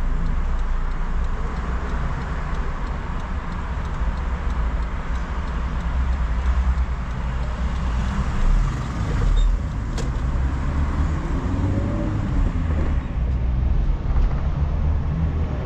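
A car's engine and tyre noise heard from inside the cabin while driving, a steady low rumble, with a single short click about ten seconds in.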